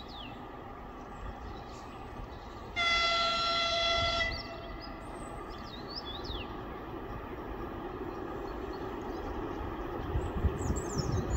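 EP2K electric locomotive sounds its horn once, a steady high blast of about a second and a half, as it approaches. The low rumble of the oncoming train grows steadily louder afterwards.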